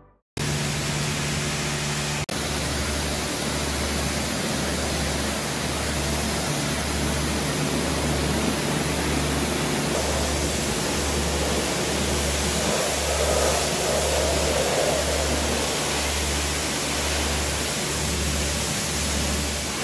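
High-pressure washer wand spraying water onto a truck's chassis and tyres: a steady, loud hiss of spray, with a low throbbing pulse about once a second underneath.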